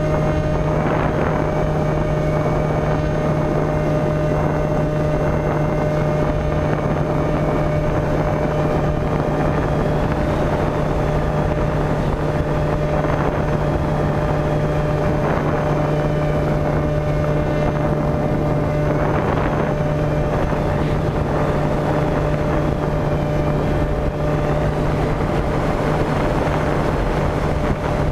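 Brushless electric motor and pusher propeller of a Skywalker 1900 model plane running at a constant speed, a steady hum, with wind rushing over the onboard camera's microphone.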